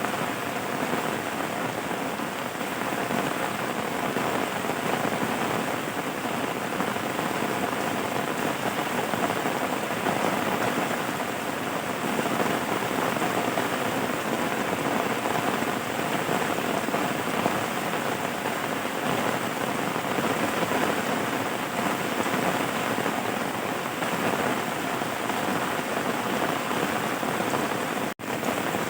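Steady, even rain falling on a surface. It drops out for an instant near the end.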